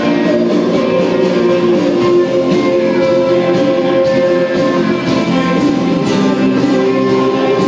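Christian worship music from a band playing a mostly instrumental passage, with held chords and guitar.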